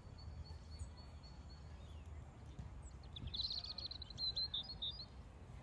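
Small bird calling: a run of thin, high, evenly spaced notes, then, about three seconds in, a louder rapid twittering run lasting nearly two seconds. A steady low rumble runs underneath.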